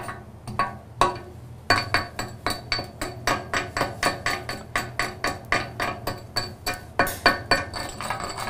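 Chipping hammer knocking slag off a fresh weld bead on steel: sharp metallic taps with a light ring, a few spaced strikes at first, then a steady run of about three a second from about two seconds in.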